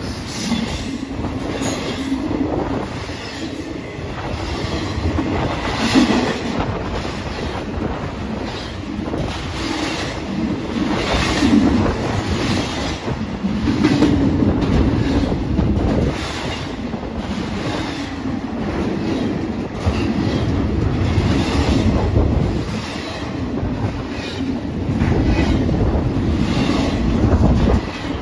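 Double-stack container well cars of a long Union Pacific freight train rolling past at speed: a steady rumble with repeated clicking of wheels over rail joints, swelling and easing as the cars go by.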